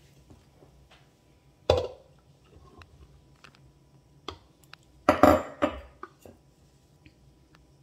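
A spatula and utensils knocking and scraping against a mixing bowl as flour is added to the water and stirred in: a sharp knock about two seconds in, then a louder cluster of clatters and scrapes about five seconds in.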